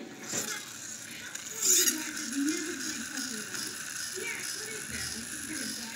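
Friction-powered toy monster truck's inertia gearbox whirring and ratcheting as the truck is pushed back and forth on a tile floor to spin up its flywheel, with a louder clatter just under two seconds in.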